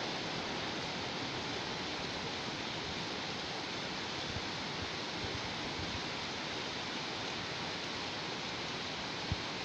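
Heavy rain falling steadily: a dense, even hiss with no let-up. A single short, low thump sounds near the end.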